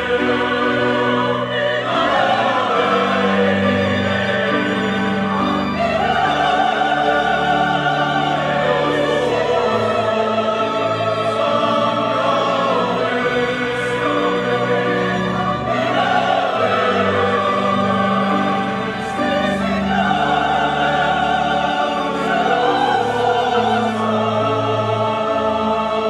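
Large mixed church choir singing a Korean hymn in parts, in Korean, with string orchestra accompaniment including violins and double bass.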